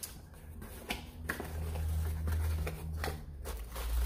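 Cardboard shipping box being opened by hand: the flaps are pulled back with a few sharp cardboard clicks and scrapes, over a low rumble from about a second in as the box is handled on the table.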